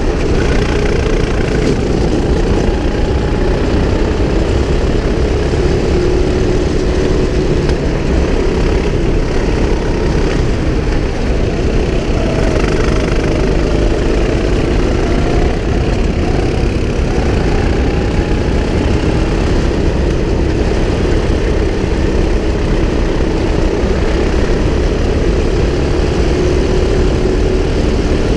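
Sodi kart's engine running at speed under the driver, its pitch rising and falling through the corners, over a heavy, steady wind rumble on the kart-mounted camera.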